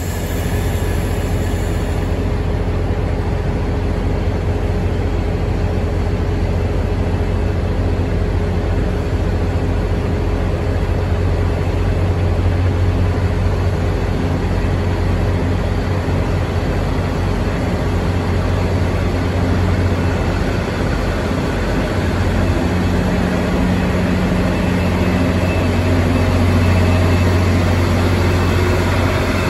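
Diesel engines of a Taiwan Railway DR3100-series diesel multiple unit running with a steady low hum as the train pulls out of the station. The sound grows somewhat louder near the end.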